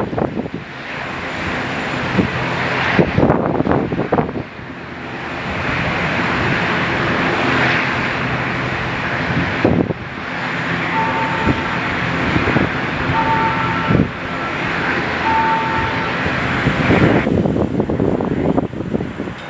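Airliner engines running steadily, with a continuous jet-like rumble.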